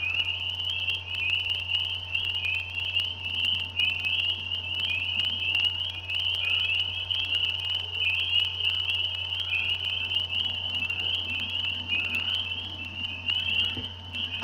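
Chorus of many frogs calling together, a dense, high-pitched trilling that runs on without a break, over a steady low hum.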